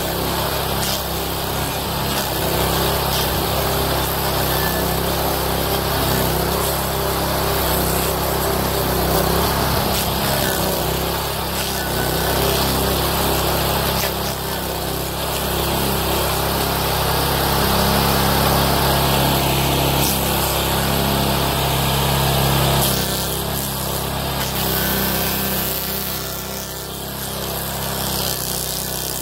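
Honda GX390 13 hp single-cylinder engine running under load, driving the homemade stump grinder's toothed cutting wheel as it grinds into a birch stump and throws chips. The sound dips a little a few seconds before the end, then picks up again.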